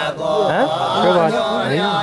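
A man's voice chanting a mantra in a sing-song recitation, the kind of chanting heard at a Hindu puja.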